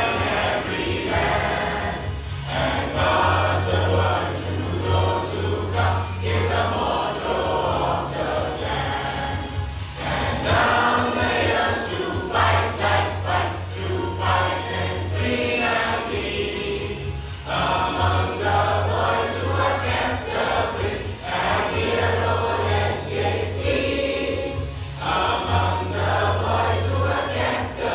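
A choir singing a song together, with instrumental accompaniment.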